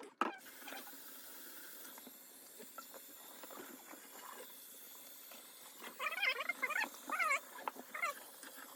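Tomcat yowling in protest at being bathed: several drawn-out meows that bend up and down in pitch, clustered about six to eight seconds in, over a steady hiss.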